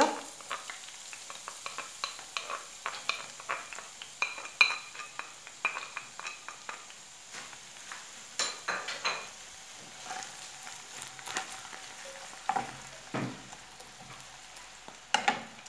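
Chopped red onion sizzling in hot olive oil in a nonstick frying pan, being softened. A wooden spatula scrapes the onion off a plate and stirs it, with many short taps and scrapes against the pan.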